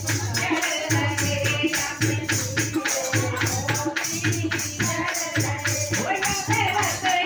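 Women singing a Hindi Krishna bhajan into a microphone, with quick, even claps and jingling hand percussion and a low beat about once a second.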